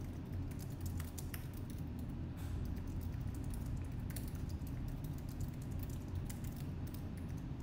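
Typing on a computer keyboard: a run of quick, irregular keystroke clicks over a low steady hum.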